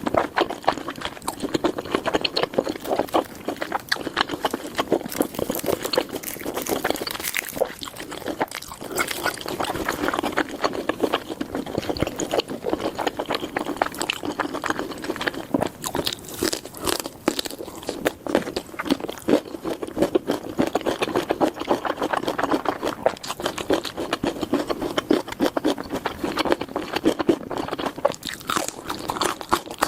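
Close-miked steak crackling and crunching: a continuous dense patter of small crackles with no pauses.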